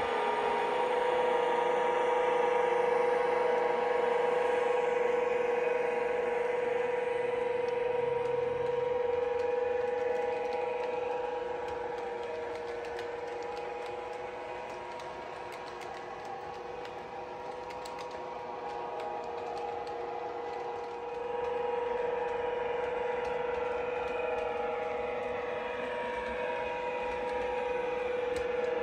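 Model OO-gauge Class 92 electric locomotive hauling sleeper coaches round a layout, running with a steady whine and light mechanical clatter of the running gear. It fades somewhat in the middle and grows louder again near the end as the train comes back round.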